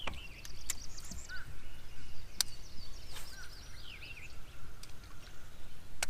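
Small birds singing: quick chirps and short falling whistled notes. Under them runs a steady low background noise, and a few sharp clicks sound, the loudest near the end.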